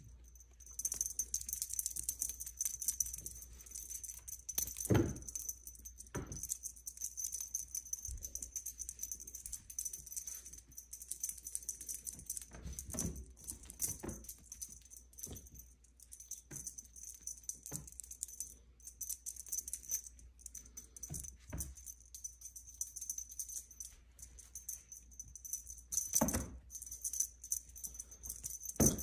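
A steady, high jingling rattle like a shaker, with irregular soft thumps. The loudest thumps come about five seconds in, about twenty-six seconds in and at the very end.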